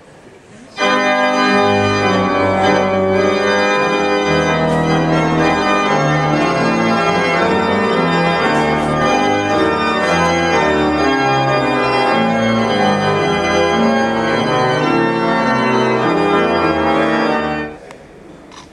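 Hill & Son pipe organ played in full sustained chords over a low bass line. It starts abruptly about a second in and cuts off sharply near the end.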